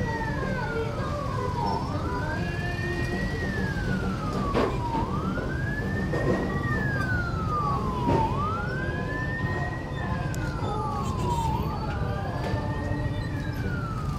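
Emergency-vehicle siren wailing: the pitch climbs quickly, then slides down more slowly, repeating about every three seconds over steady street noise. Two short knocks come through, about a third and about halfway in.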